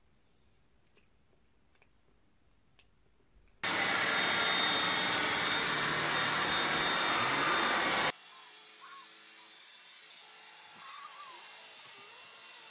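Dyson cordless stick vacuum cleaner switching on about three and a half seconds in and running with a steady high whine for about four and a half seconds, then cutting off abruptly. Before it, near silence with a few faint clicks; after it, quieter room sound.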